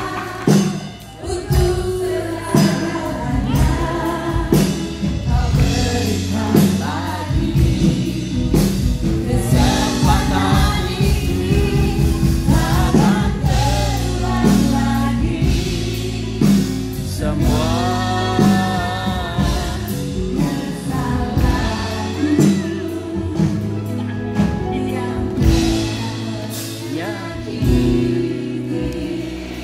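Live song performance: singers on microphones over a band with a steady drum beat and heavy bass, with backing voices joining in like a choir.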